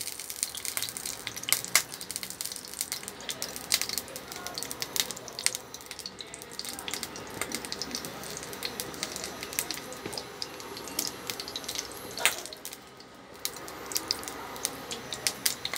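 Hot cooking oil in a pan on an induction cooker, crackling and spitting with irregular small pops and one louder pop about twelve seconds in; the oil is heating before the meat goes in.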